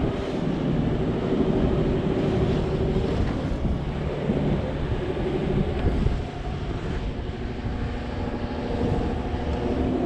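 Off-road vehicle's engine running under load, its pitch rising and falling as the revs change, over a continuous low rumble.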